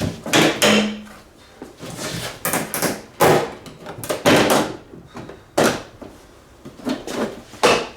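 Plastic interior trim panel of a Ford Freestar van being worked loose and handled: a run of irregular knocks, scrapes and rattles.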